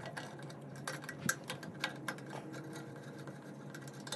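Scattered light clicks and taps of small metal parts being handled as a taillight lens assembly is taken off, over a faint steady hum.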